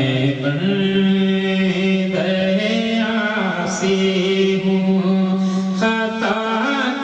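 A man singing an Urdu naat (devotional poem in praise of the Prophet) into a microphone, drawing out long held notes that step up in pitch about half a second in.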